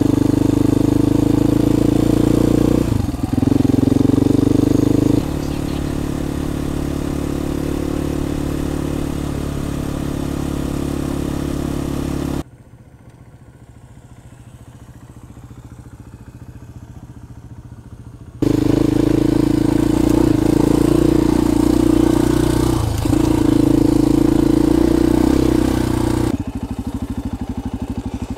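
KTM 500 EXC-F single-cylinder four-stroke dirt bike engine running steadily at riding speed. About halfway through, the engine sound drops away suddenly to a faint background for about six seconds, then returns at full level and eases off a little near the end.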